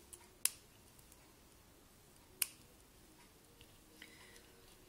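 Scissors clicking twice, about two seconds apart, while trimming felt: two sharp snaps of the blades.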